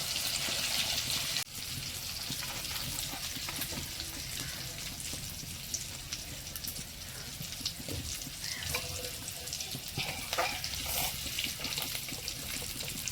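Fish roe frying in hot oil in a pan, a steady sizzle with scattered crackles. It is louder for about the first second and a half, then drops suddenly to a quieter sizzle.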